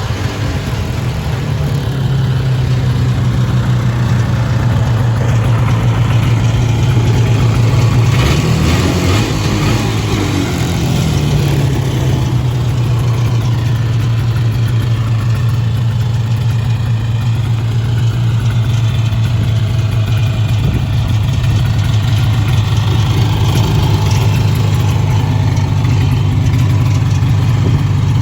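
1979 Ski-Doo 300 Citation's two-stroke snowmobile engine idling steadily, with one brief rev about a third of the way through that climbs and settles back to idle.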